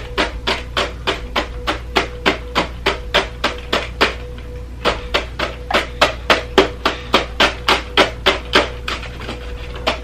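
A fork repeatedly stabbing into salad: sharp, rhythmic taps about three or four a second, with a short pause a little after four seconds in.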